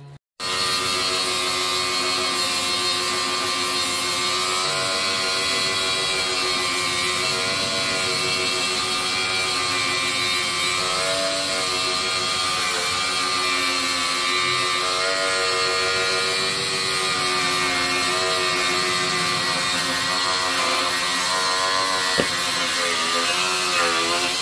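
An angle grinder cutting through a steel threaded rod, one long continuous grind that starts about half a second in. The motor's pitch wavers up and down as the cut goes on.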